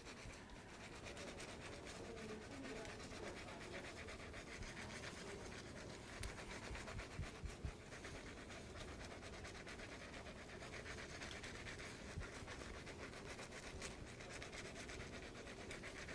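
Surgical scrub brush worked back and forth over soapy fingers, a faint rapid scratching of bristles on wet skin.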